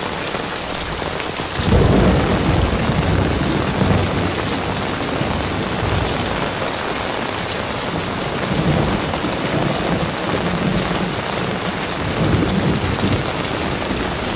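Heavy tropical downpour pelting a tiled house roof, with water streaming off the roof edge. A deep low rumble swells in about two seconds in and keeps rising and falling under the rain.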